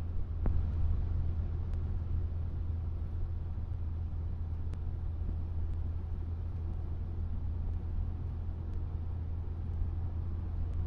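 Cessna 152's four-cylinder engine and propeller running steadily: an even, low drone that does not change, with a few faint ticks over it.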